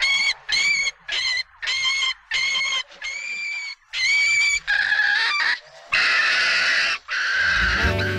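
A small animal squealing shrilly and over and over, about two cries a second, the cries growing longer and harsher about halfway through. It sounds like prey caught by a snake in a film's animal-attack scene. Music with a low bass comes in near the end.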